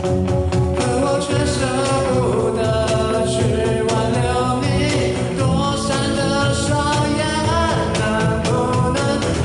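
Live band playing an upbeat pop-rock song with a steady beat and guitars, a melody line carried over it.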